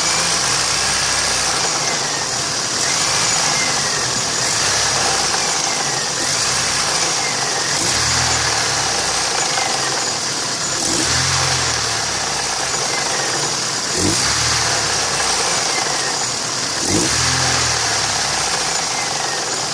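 Daewoo A15SMS 1.5-litre four-cylinder petrol engine running with a knock, blipped up briefly a few times. Two sharp clicks sound a little past the middle.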